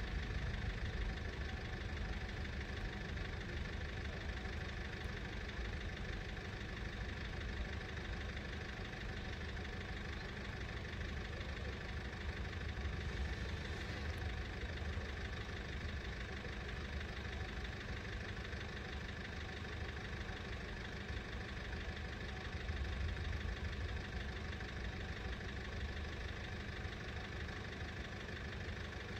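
Low steady rumble of car engines idling, with a faint steady high tone running alongside.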